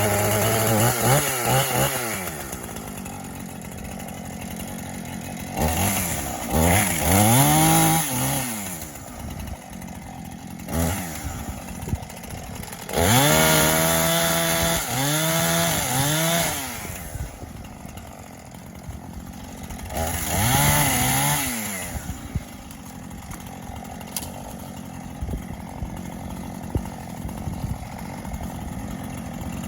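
Two-stroke chainsaw revving up hard four times to cut fallen tree branches, dropping back to a lower idle between cuts, and idling through the last third.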